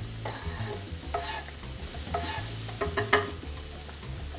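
Diced onion sizzling as it is tipped into hot oil in a cast-iron skillet, a steady frying hiss. A few sharp knocks and clatters come through it about one, two and three seconds in.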